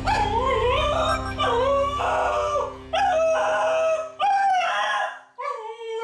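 Cocker spaniel howling and wailing in a string of about six long, wavering cries that sound almost like a person sobbing or screaming; the last one slides down in pitch. These are the distress howls of a dog with separation anxiety left alone at home.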